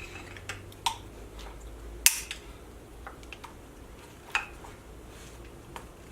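Scattered light clicks and knocks as a flathead screwdriver pries a Honda S2000 ignition coil up out of its plug well in the valve cover, the sharpest knock about two seconds in.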